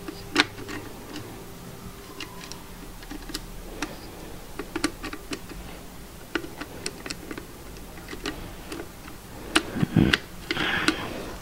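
Irregular small metallic clicks and taps of a screwdriver and small screws against an alternator's rear housing as a new brush holder is fitted and screwed down, with a couple of louder knocks near the end.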